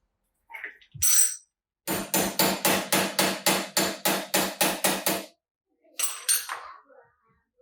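A steel hammer strikes metal on the wheel-bearing and hub assembly. It lands one blow, then a fast, even run of about a dozen ringing blows at roughly four a second, then two more. The bearing is one he thinks he has damaged.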